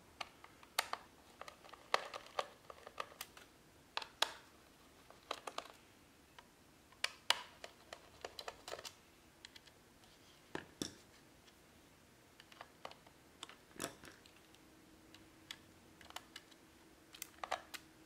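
Small screwdriver working the screws of an HP ZBook 14 laptop's hard-drive bay cover: irregular light clicks and taps as the screws are turned out and the plastic cover is handled.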